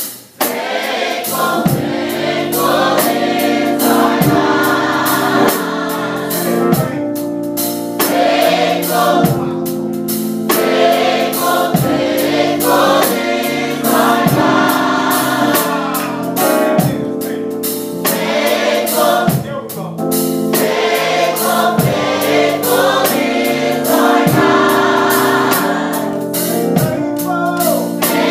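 Young adult gospel choir singing held chords in harmony, with regular sharp beats under the voices.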